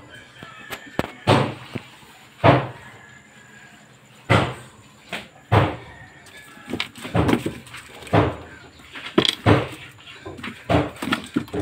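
A series of short knocks and thumps, irregularly spaced about one a second, with a few coming in quick pairs late on.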